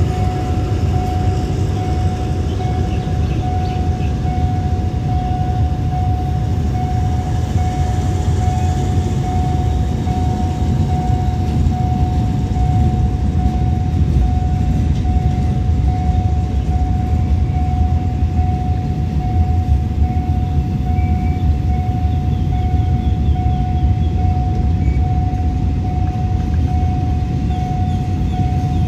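Container flat wagons of a freight train rolling slowly past, their wheels giving a steady low rumble on the rails, over a steady high-pitched tone.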